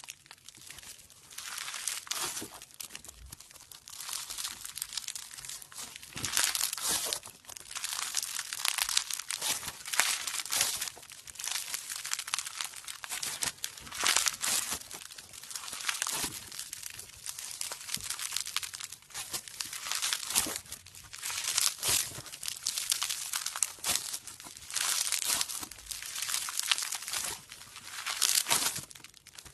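Slime being squeezed and kneaded by hand, making crackling, crinkling sounds that come in repeated waves every second or two.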